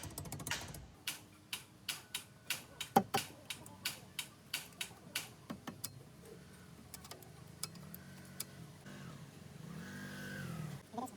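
A run of sharp, irregular clicks and knocks over the first half. Then an engine runs with its pitch rising and falling, growing louder about ten seconds in.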